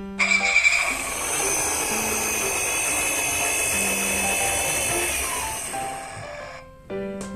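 A small toy mechanism whirring steadily. It starts abruptly and fades out about six seconds in, over light background music.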